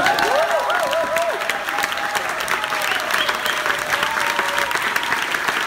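Audience clapping, with voices cheering over the applause, wavering in the first second or so and then held.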